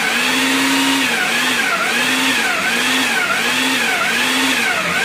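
Ninja countertop blender motor running steadily while it blends pie crust dough of flour, frozen butter and ice water. Its pitch rises and dips in a regular swell, about every three-quarters of a second.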